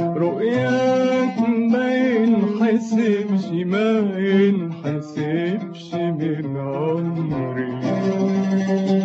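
Arabic music in maqam Kurd: a plucked oud with a man's voice drawing out long, wavering sung notes.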